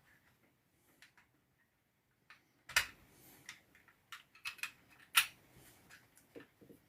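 Irregular light clicks and taps, the loudest about three and five seconds in.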